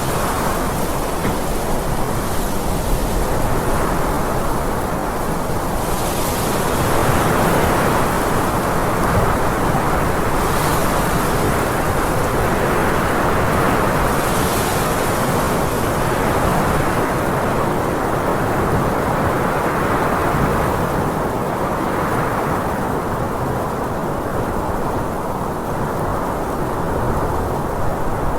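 Strong wind blowing in a steady, deep rush that swells and eases in slow gusts, with brief hissing rises now and then.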